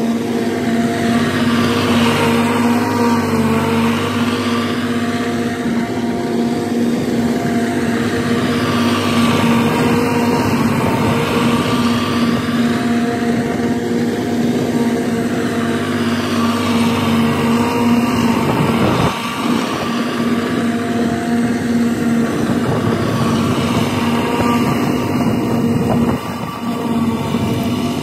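Zero-turn riding lawn mower's engine running steadily while mowing, its sound shifting slowly as the mower moves across the yard.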